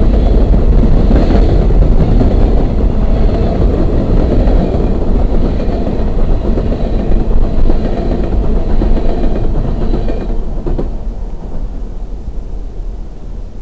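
Freight train cars rolling past at close range, steel wheels running on the rails. The last car passes about ten and a half seconds in, and the noise drops away to a low rumble.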